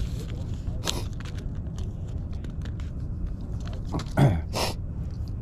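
Soft plastic lures being pulled from a crinkly plastic lure bag, with a few short crackles of the plastic, the loudest about four seconds in, over a steady low rumble of wind on the microphone.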